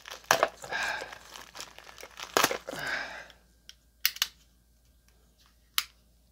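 Packaging crinkling and tearing as it is cut open, with sharp clicks; after about three seconds only a few isolated clicks remain.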